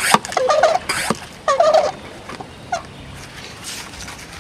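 Hand pump of a one-gallon pump sprayer being worked up and down to pressurise the tank. Each stroke gives a click and a short squeak, several about half a second apart in the first two seconds, then one more a second later.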